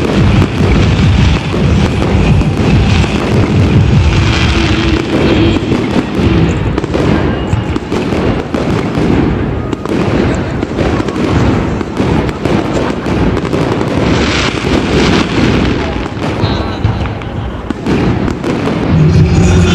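Aerial fireworks display bursting overhead: many bangs in quick succession, keeping up a continuous loud barrage with no let-up.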